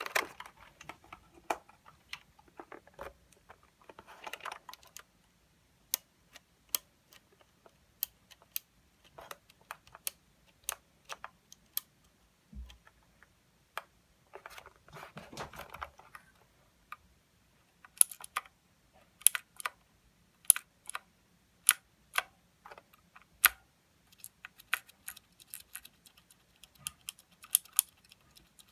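Keys on a Royal Kludge RK61 mechanical keyboard with clicky blue switches being typed on, each press a sharp click. Quick bursts of typing alternate with slower single key presses about half a second to a second apart.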